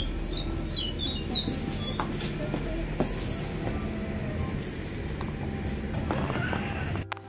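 Regional passenger train standing at a platform just after pulling in: a steady low running hum with scattered clicks and knocks, and a short squeal around the middle.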